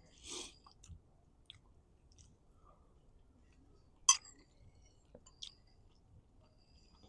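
A few faint scattered clicks and taps with a brief rustle at the start; one sharp click about four seconds in is the loudest, followed by a smaller one about a second and a half later.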